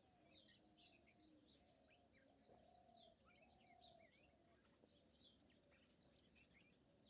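Faint chirps and calls of several birds overlapping, short repeated high notes with a few longer, lower held notes, over a low steady hiss.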